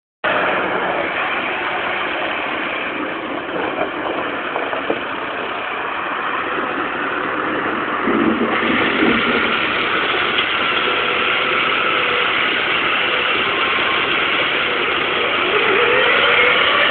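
Massey Ferguson 390T tractor's diesel engine running under work as the front-loader tractor manoeuvres in a muddy yard, with a few knocks early on. It revs up near the end.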